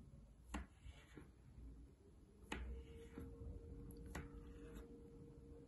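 Kitchen knife slicing through a log of soft cookie dough and tapping the marble countertop beneath: several faint, sharp clicks, one every second or two.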